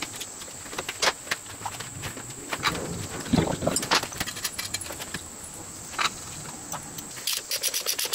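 Metal parts clinking and knocking as a timing cover is handled and fitted onto an engine block, with a fuller clatter about three seconds in. Near the end a socket ratchet clicks in quick runs as the cover bolts are tightened.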